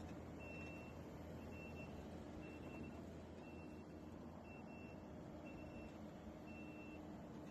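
Heavy machine's reversing alarm beeping about once a second, faint, over a low steady engine hum.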